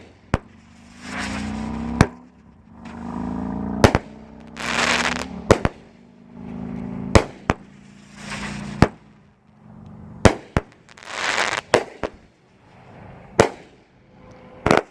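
A 200-gram consumer firework cake (Phantom Fireworks' Fiery Falcons) firing shot after shot: about a dozen sharp bangs every one to two seconds, each followed by a spell of crackling, hissing glitter. Really loud.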